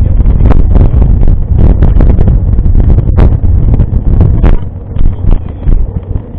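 Wind buffeting the camera microphone, a loud, uneven low rumble, with a scattered series of sharp knocks and clicks through it.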